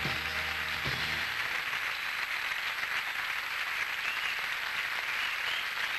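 Studio audience applauding steadily as the live country band's last chord rings out and stops about a second in.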